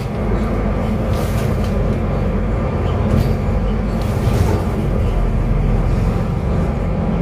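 Cabin noise of a Solaris Urbino 12 III city bus on the move: a steady low engine and road rumble, with a few short rattles.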